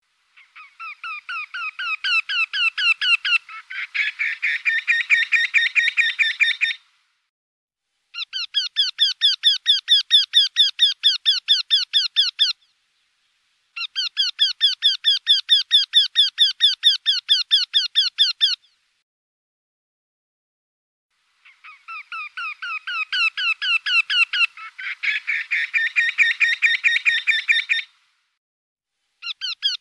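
Eurasian wryneck singing: series of quick, evenly repeated nasal notes, about four to five a second, each series lasting four to six seconds with short silences between. In two of the series the notes grow louder at the start and a second overlapping series joins in partway through.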